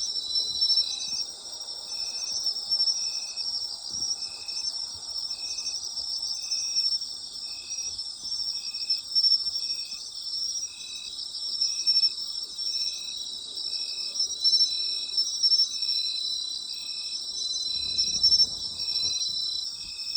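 Night chorus of autumn insects: a dense, steady high-pitched trilling, with one insect chirping in a regular rhythm about once a second. A faint low rumble joins near the end.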